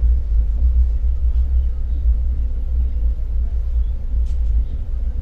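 Steady low rumble of a moving passenger train, heard from inside a carriage at the window.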